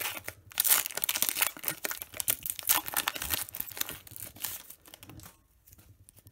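Foil wrapper of a Pokémon trading-card booster pack being torn open and crinkled: dense crackling for the first four seconds or so, then quieter near the end as the cards are drawn out.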